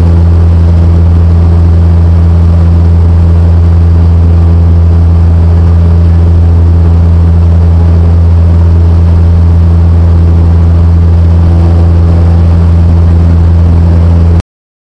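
Cessna 150's Continental O-200 four-cylinder engine and propeller droning steadily, heard inside the cabin as a loud, even low hum. The sound cuts off suddenly near the end.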